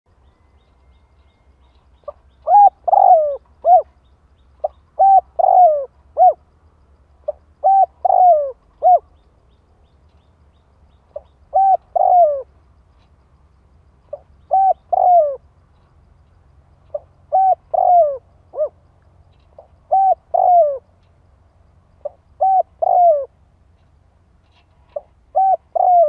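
Spotted dove cooing: a three-note coo phrase repeated about every two and a half to three seconds, the call used to provoke and draw in wild spotted doves.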